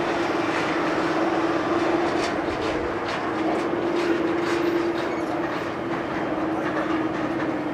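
Boeing 747-400's four jet engines running as the airliner rolls out on the runway after landing: a steady noise with a constant hum underneath.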